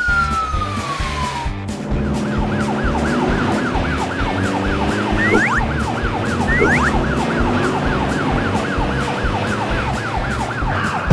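Police siren in fast yelp mode, sweeping up and down about three or four times a second, over background music with a steady low beat. It starts about two seconds in, after a single falling whistle-like glide.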